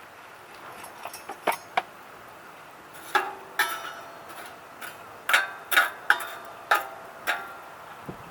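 Sharp metallic clinks from a metal fire pit, each with a brief ring. They come irregularly, a few in the first two seconds and then about eight close together in the second half.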